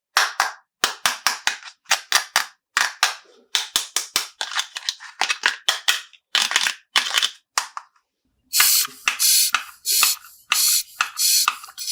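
Small hard plastic toy pieces clicking and snapping together in quick, irregular strokes, then about eight short rustling bursts of plastic packaging being handled.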